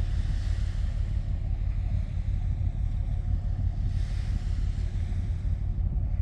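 Wind buffeting the microphone in a steady low rumble, over a soft wash of moving water.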